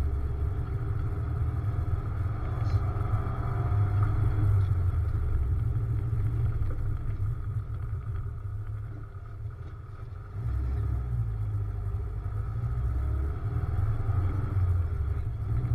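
MGB engine running with a steady low rumble. It falls off about eight seconds in, then picks up sharply again around ten seconds in.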